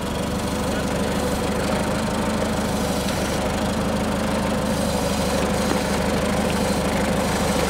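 Forklift engine running steadily as the forklift drives slowly with a load on its forks, with an even rhythmic pulse; it grows a little louder in the first second, then holds.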